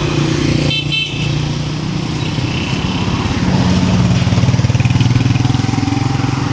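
Motorcycle engine running close by, getting louder with a rapid pulsing beat from about three and a half seconds in as it comes past, over the hum of street traffic. A brief high tone sounds about a second in.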